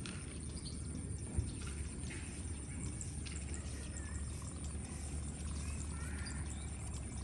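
Outdoor background: a steady low rumble with a few faint, scattered bird chirps, and one sharp click about a second and a half in.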